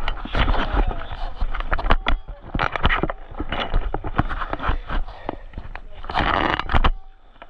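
A rapid series of knocks and clatters mixed with bursts of splashing water, over a low rumble of wind or handling on the microphone. The loudest splashing comes about six seconds in and cuts off just before the end.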